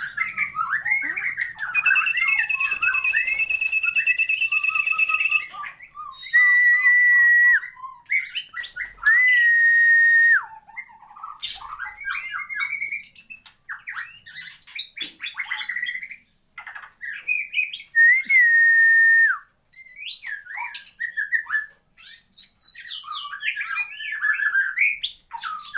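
White-rumped shama (murai batu) singing a varied song, with rapid chirps, trills and quick rising and falling phrases broken by several long, level whistled notes. It is kept as a show bird whose song is full of mimicked phrases ('isian lengkap').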